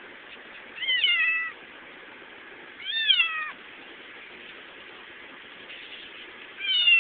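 A young kitten meowing three times: short calls, each falling in pitch, about a second in, about three seconds in and near the end, over a steady background hiss.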